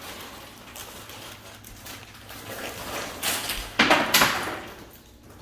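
Trading card packs and cards being handled: a low rustle, then two loud papery swishes a little past the middle.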